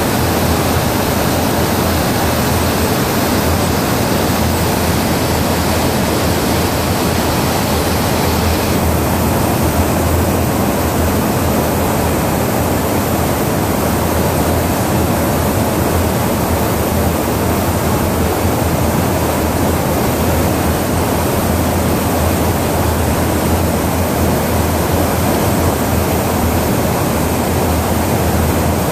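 Steady in-flight noise inside a tanker aircraft's boom operator station during air-to-air refuelling: a rushing hiss of airflow and engines over a low, steady drone. About nine seconds in, the hiss becomes a little duller.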